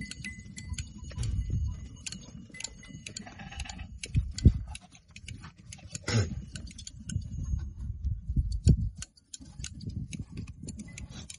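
Goats being hand-sheared: a dense run of small snipping clicks from the shears, with wind rumbling low on the microphone. A short goat bleat stands out about six seconds in.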